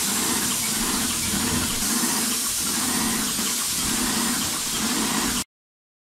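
Titan 1500 airless paint sprayer spraying paint: a steady hiss from the gun over a low hum that pulses about once or twice a second, the sprayer primed and running with enough paint. It cuts off suddenly near the end.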